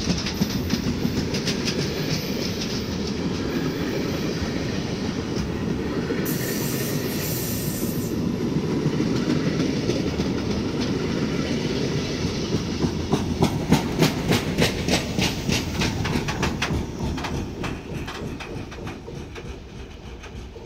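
Freight train of sliding-wall covered wagons rolling past: steady running noise of steel wheels on rail, with a regular clickety-clack as the wheelsets cross rail joints, clearest a little past halfway. A brief high hiss comes about six seconds in. Near the end the last wagon passes and the noise fades away.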